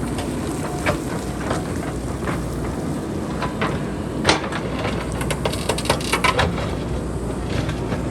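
Boulders and pebbles clattering as they tumble down a hillside: irregular sharp knocks, the loudest about four seconds in and a dense run of them between five and six and a half seconds, over a steady low rumble.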